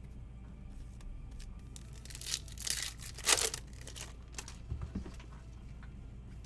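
A trading-card pack's foil wrapper being torn open and crinkled: a few short rustling bursts, the loudest between about two and three and a half seconds in.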